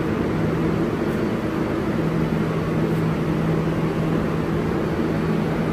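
Steady rumble with a constant low hum inside an R142-family New York subway car.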